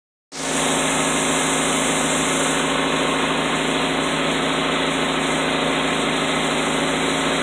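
Saturn SL2's 2.2-litre four-cylinder engine idling steadily.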